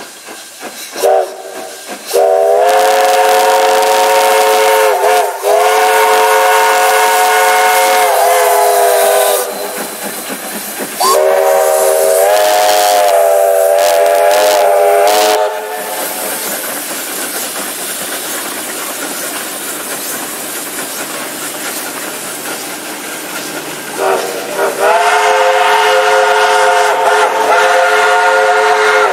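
Whistles of a triple-headed steam train (Victorian Railways Y- and K-class locomotives) blowing as it departs, several tones sounding together as a chord: a short toot, then three long blasts, the longest about seven seconds. Steam hiss and the noise of the passing locomotives fill the gaps between blasts.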